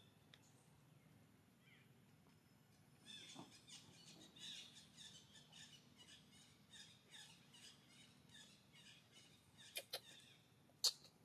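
Faint, rapid smacking clicks, several a second, from a macaque lip-smacking over a newborn baby monkey, the friendly greeting monkeys give to a new infant. Near the end come two sharp clicks close together and then one louder click.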